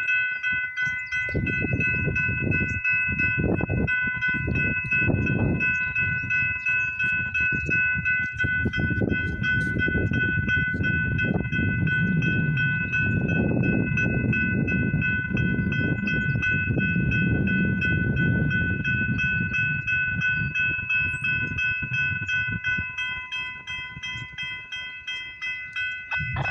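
A freight train rumbles past, wheels clattering over the rails, coming in about a second in and easing near the end, while a level-crossing warning bell rings steadily over it.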